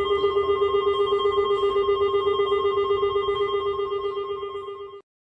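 Emergency alert alarm tone: a rapidly pulsing trill of several steady pitches, cutting off suddenly about five seconds in.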